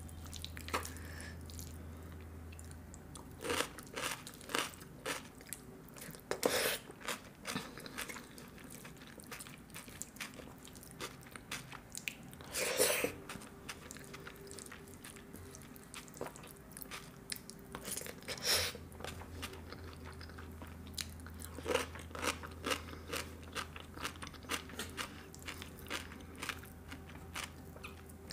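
Close-miked eating by hand: chewing with irregular sharp crunches and mouth clicks, the loudest about 6, 13 and 18 seconds in, as mouthfuls of jeera rice mixed with curry are eaten.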